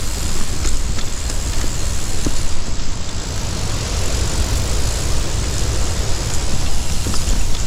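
River rapids rushing loudly, a steady, unbroken roar of white water.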